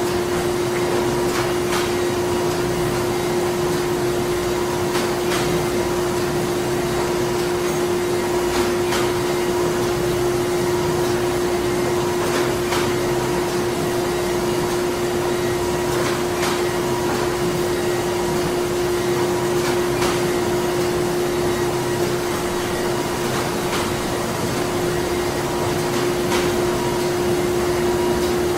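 Printing-plant machinery running steadily: a constant hum with one strong steady tone over an even mechanical whir, with faint irregular clicks now and then.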